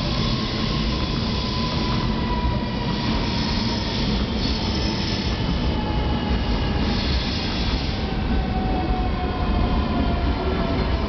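Sydney CityRail double-deck electric train rolling slowly past as it arrives at the station: a steady rumble of wheels on track, with several thin high tones slowly falling in pitch as it slows.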